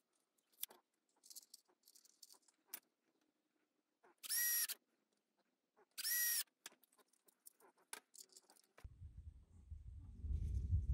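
Cordless drill-driver spinning in two short bursts, about half a second each, a little past four and six seconds in, driving small screws into small butt hinges, with the motor pitch rising and falling at each. Light tool-handling clicks and taps fall in between, and a low rumble sets in near the end.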